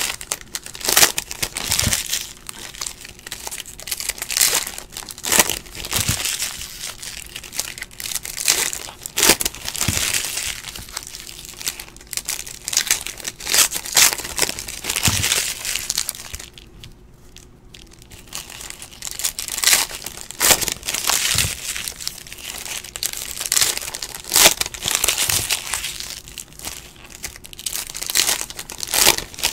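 Foil wrappers of Panini Illusions football card packs crinkling and tearing as packs are ripped open and handled, with sharp crackles throughout and a short lull about halfway through.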